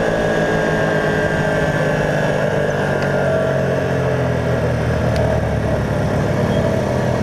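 Racing motorcycle's engine running under load through a corner, holding a fairly steady pitch, heard from a camera mounted on the bike with wind rushing past.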